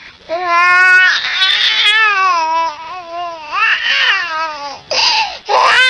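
Infant crying: loud, long wavering wails with brief catches of breath between them, four cries in a row.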